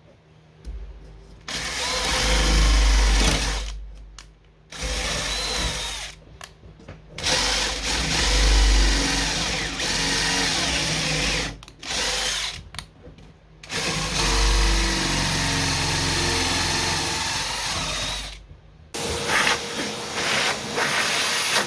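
Electric drill with a long 1/2-inch bit boring a bolt hole into a piano's wood, marked to depth, running in several separate runs of a few seconds each with short stops between. Near the end, choppier clicks and knocks take over.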